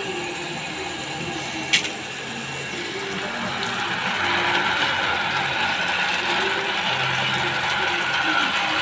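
Goldenstar deep-well ejector pump running steadily while water gushes from its discharge pipe and splashes onto the ground, the rush of water growing louder about four seconds in. A single sharp click about two seconds in.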